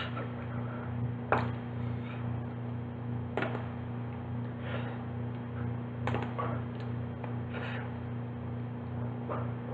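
Soft taps and brushing of hands against each other and against clothing during sign language signing, a few sharp clicks spread out over a steady low hum.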